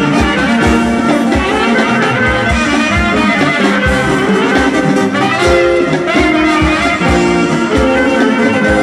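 Macedonian brass-band dance music (chalkina): trumpets and saxophones playing a melody in held notes over a steady bass-drum beat.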